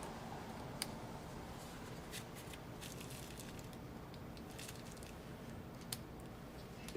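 Quiet room hum with scattered light clicks and ticks from small parts and tools being handled inside the laptop, with a sharper click about a second in and another near the end.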